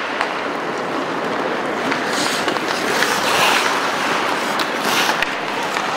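Ice hockey play: skates scraping over the ice and sticks clicking against the puck and each other, over the steady noise of the rink, with two louder scrapes about two and five seconds in.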